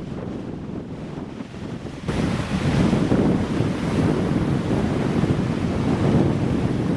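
Wind buffeting the microphone in a low, rumbling roar, which turns suddenly louder about two seconds in.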